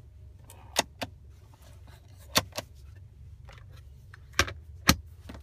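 Plastic clicks and snaps from the pop-out cup holder in a 2015 Mercedes-Benz C300's rear centre armrest being handled, pushed in and sprung back out. There are about seven sharp clicks at irregular intervals, the loudest near one second, two and a half seconds and twice between four and five seconds.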